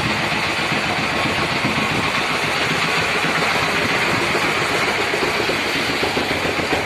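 Engine of a river pontoon ferry running steadily during the crossing, a fast, even chugging.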